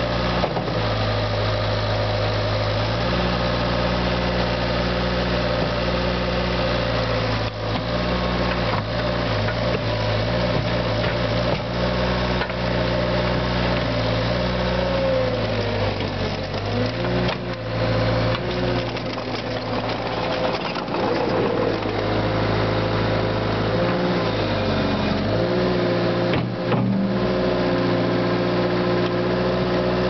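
CAT skid steer's diesel engine running steadily while digging dirt. Its note shifts in steps and sags and recovers a few times as the bucket takes load.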